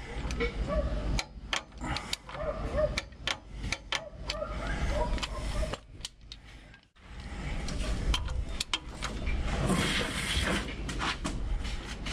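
Ratchet of a hand torque wrench clicking in short runs of strokes while tightening the oil filter housing bolts on a Unimog engine, with a brief pause near the middle.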